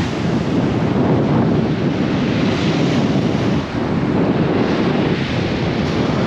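Wind buffeting the microphone in a steady rush, over waves breaking on the shingle beach.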